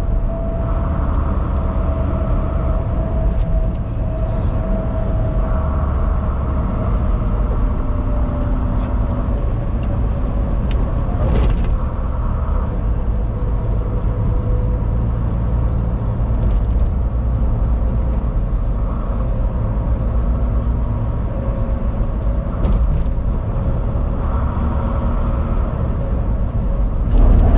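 Semi-truck driving at highway speed, heard from inside the cab: a steady engine drone and road rumble, with a faint tone that slowly drops in pitch and a couple of brief clicks.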